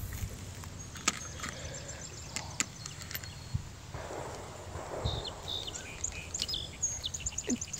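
Quiet pondside background with scattered light clicks and a soft swish about halfway through, from a spinning rod and reel being cast and worked. Runs of rapid faint high ticks come twice, early and near the end.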